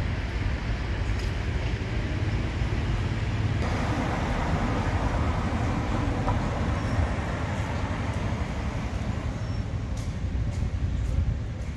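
City street traffic noise: a steady low rumble of passing vehicles. It grows fuller for a few seconds in the middle as a heavier vehicle goes by.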